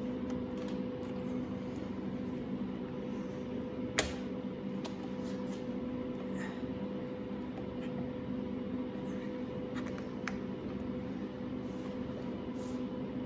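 Steady hum of a workshop background with a few small clicks from hand work on a clutch lever's cable adjuster and rubber boot, the sharpest click about four seconds in.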